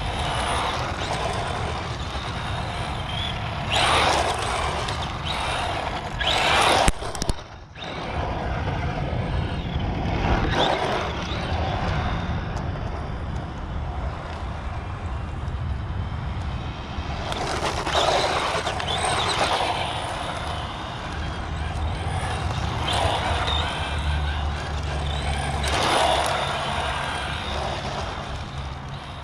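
Electric radio-controlled touring car running on tarmac, its motor and tyres swelling to a hiss several times as it passes near, over a steady low rumble.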